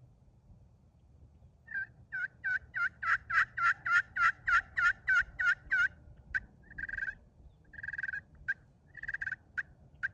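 Friction turkey pot call with a purple slate-over-copper surface, played with a laminate striker. After a short pause comes a steady run of about fourteen yelps, each breaking from a high note to a lower one, then sharp clucks mixed with a few longer, drawn-out notes.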